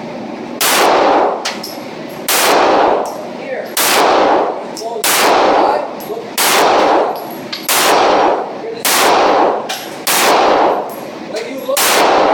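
9mm pistol fired nine times at a steady slow pace, about one shot every second and a half, each loud crack followed by a long echo inside an enclosed indoor range.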